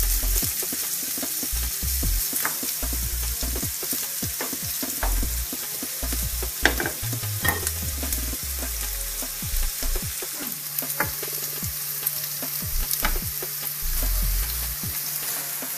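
Chopped onions and smoked bacon sizzling as they fry in olive oil in a pan, a steady hiss with scattered sharp clicks, the loudest about halfway through.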